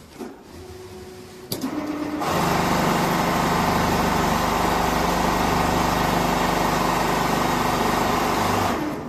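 Richpeace four-head CNC sewing machine stitching fiber-filled jacket panels. It is quieter at first, with a single click about one and a half seconds in, then runs loud and steady with a rapid stitching rhythm for about six seconds before dying down near the end.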